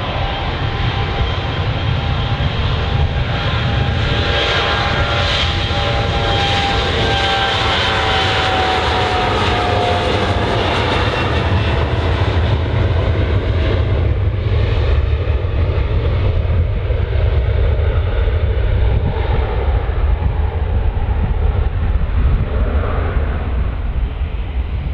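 Jet airliner passing: a steady engine rumble with a whine whose tones slide down in pitch over several seconds as it goes by.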